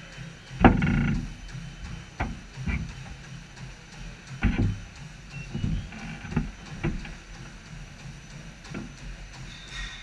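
Irregular knocks and thuds from a treadmill under a runner, over a low steady hum. The loudest knock, about a second in, rings briefly like a metal clank.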